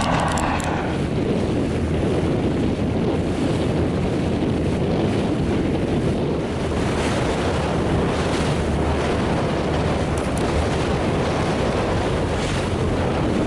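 Wind buffeting the microphone over rushing water and waves from a moving inflatable coach boat, with its outboard motor running underneath.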